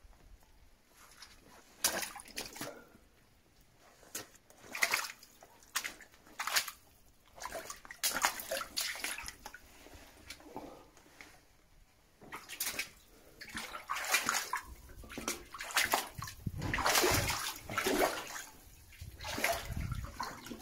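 People in wellington boots wading through water in a flooded mine passage, sloshing and splashing with each step. The splashing is sparse at first and gets busier and louder in the second half.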